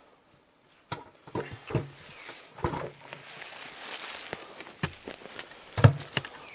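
Logs and branches being handled and set onto a black bear-bait barrel: a series of irregular wooden knocks and thuds, with rustling of forest litter between them. The first second is quiet, and the loudest knock comes about six seconds in.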